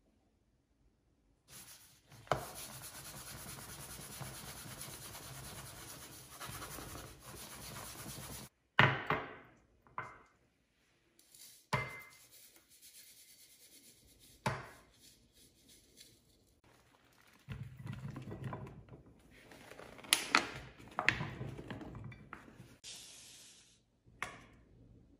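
Kitchen utensils scraping and rubbing for several seconds, then several separate knocks, then more scraping with a couple of knocks.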